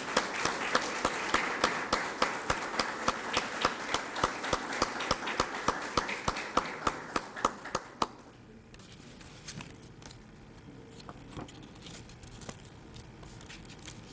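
Audience applauding, with one loud clapper keeping an even beat of about two or three claps a second over the crowd's clapping; it stops about eight seconds in, leaving a quiet room with a few faint clicks.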